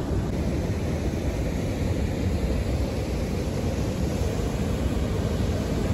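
Water pouring over a low concrete weir: a loud, steady rush, heaviest in the low range.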